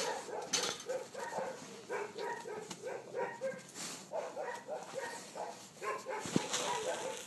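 A dog whining in a string of short, high notes, several a second, with a few clicks and rustles close to the microphone.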